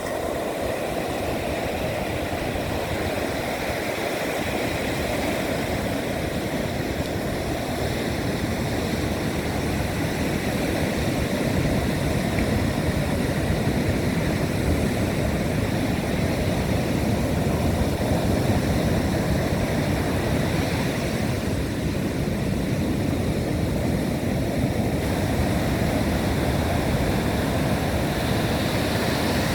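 Big Atlantic waves breaking in heavy surf, with strong wind blowing. A steady roar of noise that grows a little louder over the first dozen seconds.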